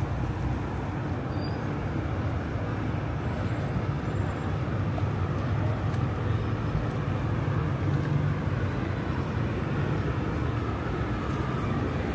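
Steady street ambience of road traffic in a city, a continuous low noise of passing cars with no single event standing out.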